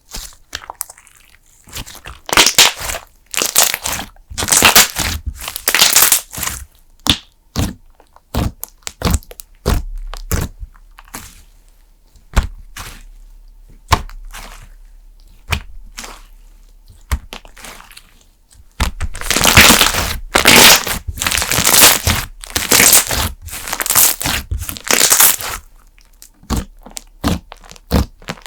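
PBJ cream slime being pressed and squeezed, giving off dense runs of sharp crackling and popping as air pockets burst, in two long stretches with quieter pauses between.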